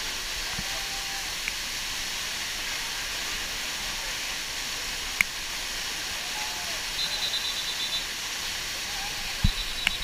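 Water from a river waterfall cascading over rock close by: a steady rush, with faint distant voices and a couple of sharp knocks.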